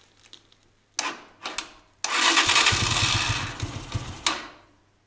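Electric starter cranking a cold single-cylinder motorcycle engine, with the choke on and a weak battery. Two short blips come about a second in, then about two seconds of steady cranking with a fast, even low chugging. It stops abruptly without the engine catching.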